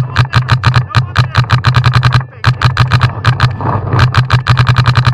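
Paintball marker firing fast strings of shots, about eight to ten a second, each a sharp pop. There is a short break a little over two seconds in, then firing resumes.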